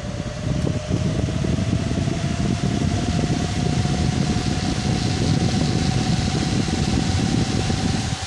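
Cooling fans of a Gigabyte Windforce GTX 780 graphics card spinning up to 100% speed. A steady rush of air carries a fan whine that rises slightly in pitch over the first few seconds and then holds steady.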